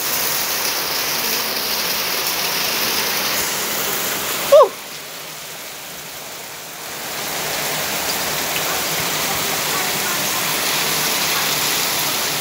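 Heavy rain pouring down in a steady rush. About four and a half seconds in, a brief loud sound with a falling pitch cuts through, and the rain sounds quieter for a couple of seconds after it.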